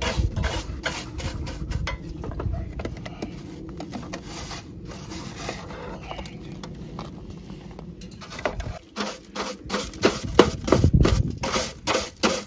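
Cleaning powdery debris out of a tractor's battery compartment: a rapid series of rubbing, scraping and knocking sounds over a low rumble. The rumble stops about eight and a half seconds in, and the knocks become louder and sharper near the end.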